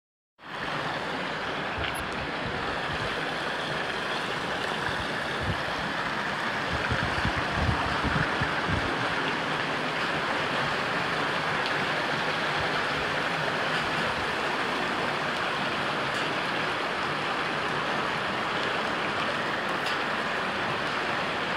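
Heavy rain pouring and floodwater running along a flooded street: a steady, even hiss that cuts in just after the start, with a few low thumps near the middle.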